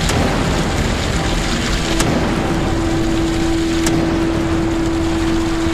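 Steady rushing noise, with a held low tone coming in about a second in.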